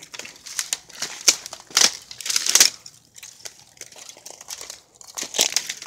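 Clothing fabric rubbing and scraping against a phone's microphone as the phone is jostled, giving irregular scratchy rustles. They are densest in the first three seconds, thin out, then pick up again near the end.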